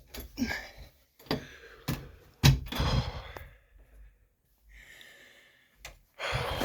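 A few thumps and knocks in a small room, the loudest about two and a half seconds in, with a breathy sigh near the middle.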